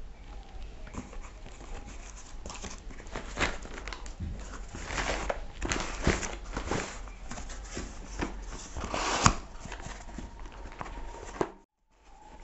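Cardboard parcel box being torn open by hand: flaps and cardboard scraping and rustling, with sharp rips and one loudest snap about nine seconds in. The sound drops out briefly near the end.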